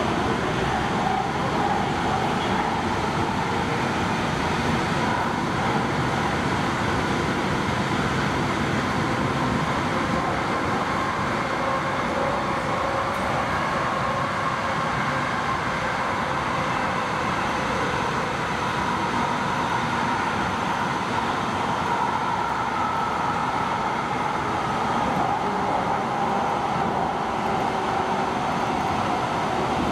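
MAX light-rail car running steadily through a tunnel, heard from inside the car: a constant rumble and rail noise with a faint whine.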